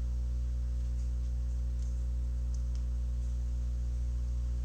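Steady low electrical hum, with a few faint light clicks.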